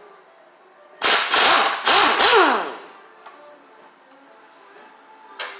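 Air-powered wrench run in two bursts of about a second each on a tight fastener, its motor whining down in pitch as the second burst ends. A sharp knock near the end.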